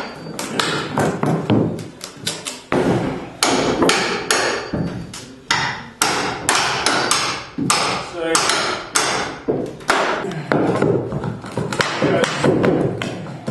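Hammer striking a steel pry bar to drive it in between old wooden floorboards: a quick, irregular run of sharp metal-on-metal blows, with knocks from the boards being pried loose.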